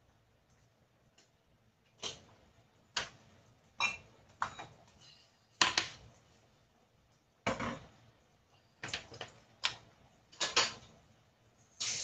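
Thick chicken curry simmering and reducing in a pot, with about ten irregular sharp pops and plops as bubbles burst through the sauce, starting about two seconds in.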